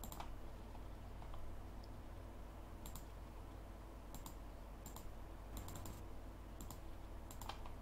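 Computer mouse clicking as edges are picked one by one: short sharp clicks at irregular intervals, several in quick pairs, over a low steady hum.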